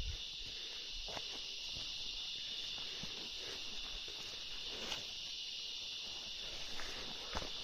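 Steady high-pitched insect chorus in wet forest, with scattered footsteps on the trail.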